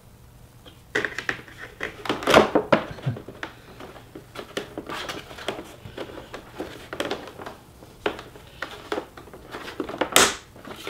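Irregular plastic clicks, knocks and rustles as a replacement plastic grille insert is handled and its clips are pressed into the front bumper cover, with a louder sharp sound near the end.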